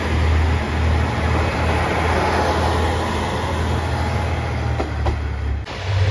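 JR Shikoku 1000-series diesel railcar pulling out of a station past the camera: a steady low engine drone over the running noise of the train. The sound drops away abruptly near the end.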